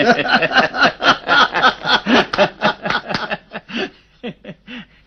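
Two men laughing together: a loud run of quick ha-ha pulses that thins out after about three and a half seconds into a few short chuckles near the end.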